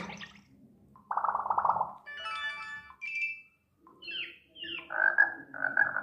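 Redmi 9A built-in notification tones previewed one after another through the phone's speaker: a string of short, different one-second alert sounds, ending with chirps and then frog-like croaks.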